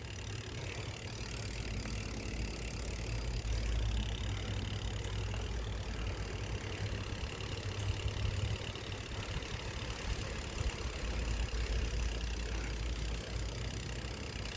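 Wind buffeting the microphone in a loud, gusty low rumble, over the fainter ticking buzz of a Shadow Conspiracy Symbol four-pawl cassette hub freewheeling on a BMX bike.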